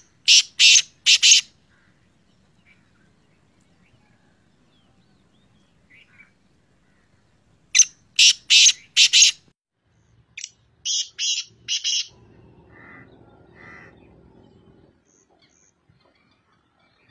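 Black francolin (kala teetar) calling: three phrases of three or four loud, harsh notes, one at the start, one about eight seconds in and one about eleven seconds in. Two fainter, lower notes follow.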